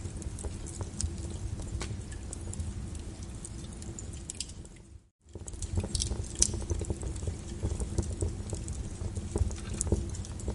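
Wood fire burning in a fireplace, with a constant run of sharp, irregular crackles and pops over a low rumble of the flames. About halfway through, the sound fades out briefly to near silence and then comes back at full level.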